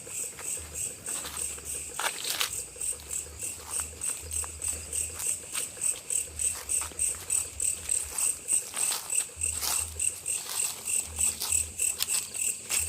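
Insects chirping in a steady, even rhythm, about three to four pulses a second, with a few short clicks or rustles.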